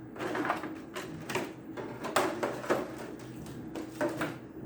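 Handling of a plastic figure and its packaging: an irregular run of sharp plastic clicks and taps with light rustling.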